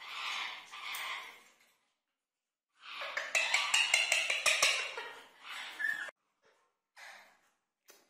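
Indian ringneck parakeets making harsh, hissy chattering calls in bursts: a short run at the start, a longer, louder stretch of about three seconds in the middle with rapid clicks running through it, and a brief burst near the end.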